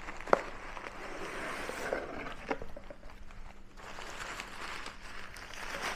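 Rustling and handling of a flying-ghost Halloween prop's thin white covering and its cardboard box as it is taken out, with a sharp click about a third of a second in and a few lighter ticks later.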